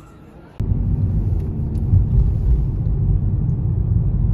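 Low, steady rumble of a car driving, with road and engine noise heard from inside the cabin. It starts abruptly about half a second in.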